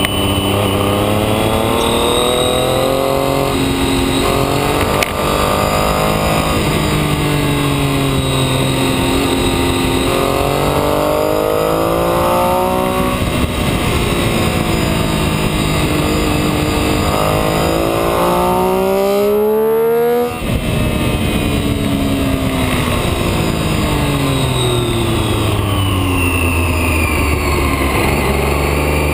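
Motorcycle engine heard from an onboard camera, its pitch climbing and falling over and over as it accelerates and backs off through a run of bends, over steady wind and road noise. About twenty seconds in the note climbs high, cuts out for a moment, then picks up again.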